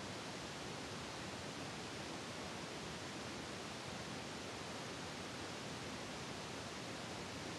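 Steady, even hiss with nothing else standing out: no voices, commands or distinct sounds.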